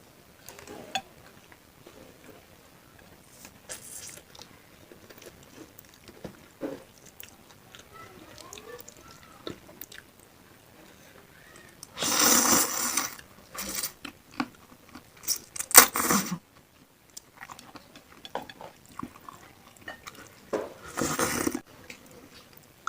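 Close-miked chewing and biting of bakso meatballs and tetelan beef, with many small wet clicks. Four louder, noisy sounds of about a second each come in the second half.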